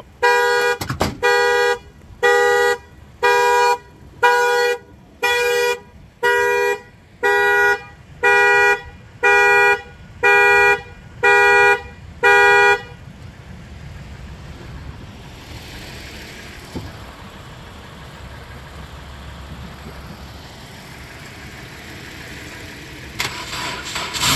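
Car horn sounding in a car-alarm pattern: the same honk repeats evenly about once every 0.8 seconds, more than a dozen times, then stops about 13 seconds in, leaving faint outdoor background.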